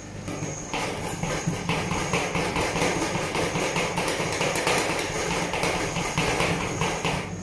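Two steel spatulas rapidly chopping on a frozen stainless-steel cold plate, a fast, continuous run of metal-on-metal clacks that starts about a second in and stops near the end. This is the chopping stage of making rolled ice cream, working chocolate pieces into the cream base.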